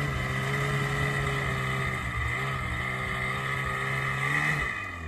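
Snowmobile engine running at a steady speed, then easing off near the end.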